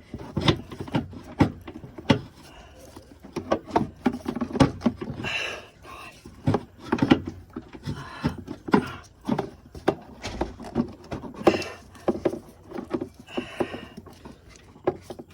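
Irregular clicks, knocks and short rustles of car parts being handled and pushed into place by hand while fitting a component onto the intake manifold.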